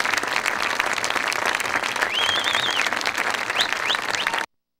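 Stadium crowd applauding and cheering for a marching band, with a high wavering cheer about two seconds in and two short rising whoops near the end. The sound cuts off abruptly just before the end.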